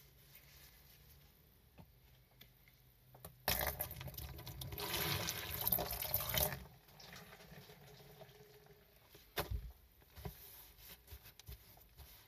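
A thin stream of water poured into a shallow tray, splashing for about three seconds from a few seconds in, rinsing soapy foam off the tray floor. A single short knock follows later.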